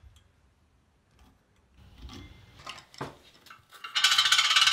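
Light clicks and taps of small metal plumbing parts being handled. About four seconds in comes a loud, quick metallic rattle as a chrome drain flange is set down on the porcelain sink and settles, like a coin spinning down.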